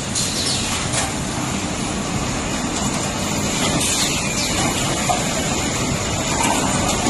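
Hot-spring coiling machine running with a steady dense mechanical rumble and hiss, with a few faint scrapes or knocks.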